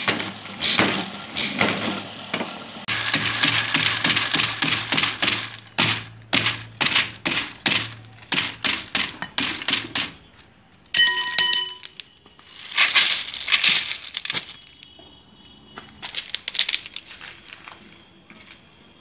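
Rapid sharp knocks and clinks, with a low machine hum under the first half and a brief ringing tone just past the middle.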